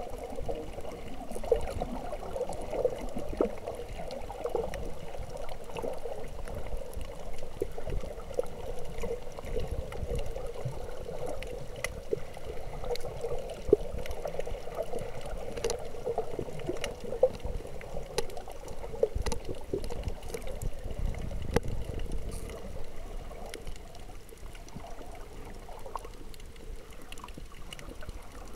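Underwater reef ambience: water gurgling and sloshing around the submerged camera, with scattered sharp clicks throughout. It gets a little quieter in the last few seconds.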